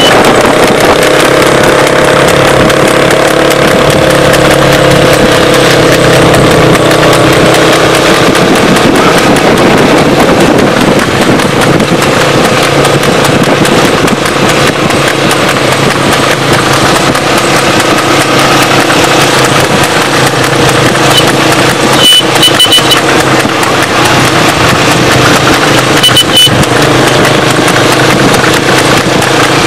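A driven horse's hooves clip-clopping along with the steady hum of a running motor vehicle, loud and noisy throughout; a few short high beeps come about three-quarters of the way through and again shortly after.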